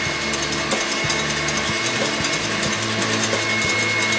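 Electric stand mixer motor whirring steadily as it whips egg whites toward stiff peaks, over background music with stepped bass notes.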